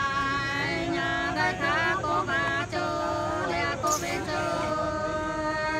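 Nùng women singing sli, a folk song in slow, held notes that slide and waver in ornaments.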